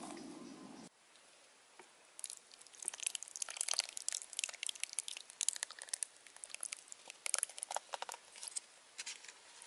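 Thick tomato sauce poured in a thin stream onto chopped vegetables in a clay pot: a dense run of small wet crackles and spatters. A steady low background noise cuts off about a second in.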